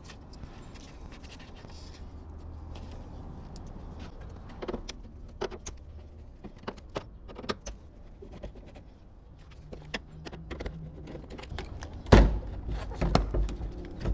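Handling sounds from work on a car door's mirror fittings: scattered light clicks and metallic clinks of a plastic wiring connector and a screwdriver. About twelve seconds in comes a loud knock followed by a few more knocks and rattles.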